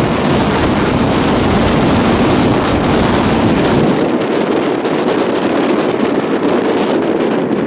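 Heavy wind buffeting on the microphone, its low rumble easing off about four seconds in, with a BMW E30 rally car's engine running behind it as the car drives along the stage.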